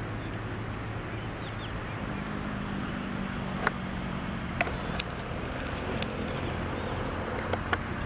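Electric freight locomotive running toward the listener with its train: a steady low hum over a broad rumble, with a second hum joining about two seconds in and a few sharp clicks in the second half.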